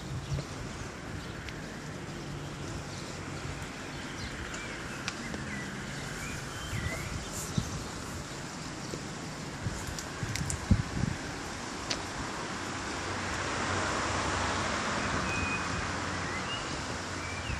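Wind on a phone microphone over a steady outdoor background rumble, with a few scattered faint clicks and chirps; the wind noise swells in the last few seconds.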